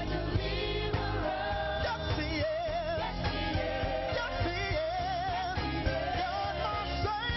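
Gospel worship song sung by a mixed praise team of male and female voices with band accompaniment, on the words "God my Deliverer, yes He is, yes He is".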